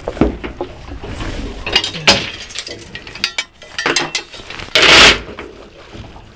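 Anchor chain clinking and rattling as the anchor is hauled out of a boat's bow anchor locker, then a loud splash as the anchor is thrown into the water about five seconds in.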